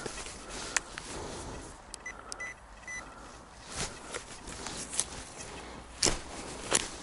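Footsteps rustling through forest leaf litter, with three short, high electronic beeps from an XP Deus metal detector about two to three seconds in.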